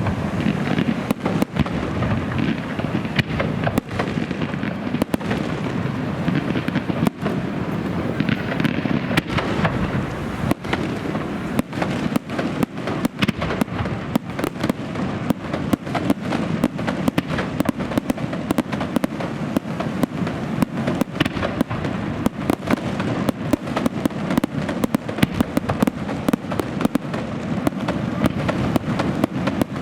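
Fireworks display: a dense, unbroken barrage of shell bursts and crackling reports, many sharp bangs a second over a continuous low rumble of echoing explosions.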